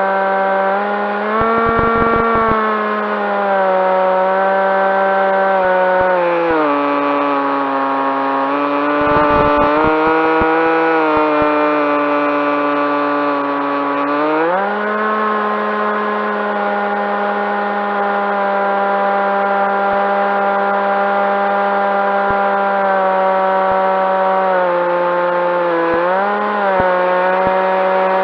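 Brushless electric motor and propeller of a Skywalker FPV plane, heard from on board, running with a steady whine. The pitch steps down about six seconds in, climbs back about fourteen seconds in, and dips briefly near the end as the throttle changes. Short crackles come through now and then.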